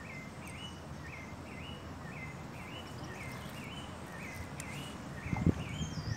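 Outdoor ambience with a high, rising chirp repeating in pairs about once a second, and a couple of dull knocks near the end.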